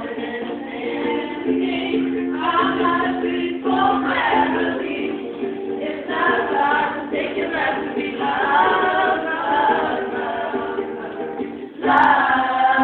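A group of girls singing together in several voices, with long held notes. The singing breaks off briefly near the end and then starts again louder.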